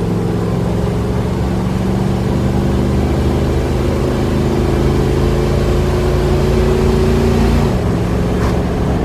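1971 Dodge Charger's 318 small-block V8 under full-throttle acceleration through its freshly installed and adjusted carburetor, pulling without bogging. The engine note climbs steadily, then drops sharply near the end as the automatic transmission shifts up.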